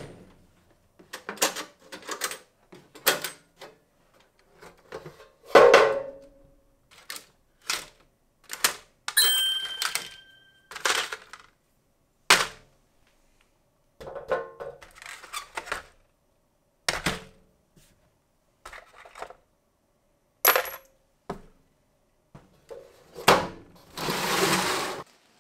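Steel sockets and hand tools clinking and clattering in a metal tool case, with knocks of the case itself, in a string of separate short bursts with brief silences between. One strike about nine seconds in rings on briefly. Near the end comes a longer rubbing sound as a hand sweeps over the dusty lid.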